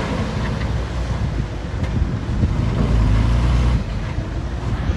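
A dump truck's diesel engine running steadily, with wind buffeting the microphone.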